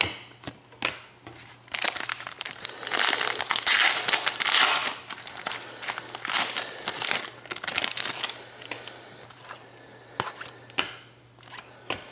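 Hockey card pack wrapper crinkling and tearing as a pack is opened, with cards rustling and clicking as they are handled; the crinkling comes in bursts, busiest a few seconds in.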